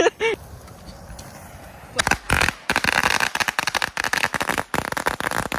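A string of firecrackers going off, a rapid irregular run of sharp cracks starting about two seconds in.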